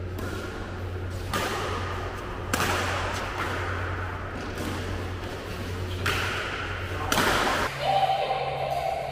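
Badminton rackets striking a shuttlecock about four times during a rally, each hit sharp and echoing in the hall, over a steady low hum. A held tone comes in near the end.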